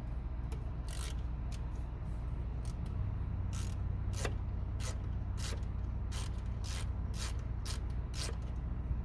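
Ratchet wrench clicking as it loosens 10 mm nuts off the studs holding the carburetor and air filter base on a John Deere 16 HP engine. There are a few scattered clicks early, then a run of about two clicks a second through the middle.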